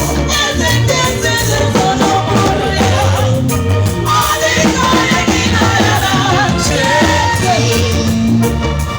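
Live band music with women singing over a strong bass guitar line, the steady groove of a sound check.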